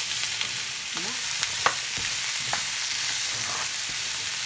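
Diced zucchini, onion and garlic sizzling in olive oil in a skillet with a steady hiss, while a spatula stirs them, clacking against the pan a few times.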